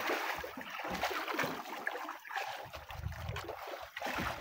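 Sea water sloshing and splashing against the side of a boat, in uneven, irregular surges.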